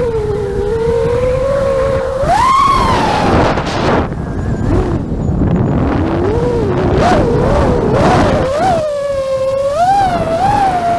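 Drone motors and propellers whining in one steady pitched tone that rises and falls as the throttle changes, with wind rumbling on the microphone.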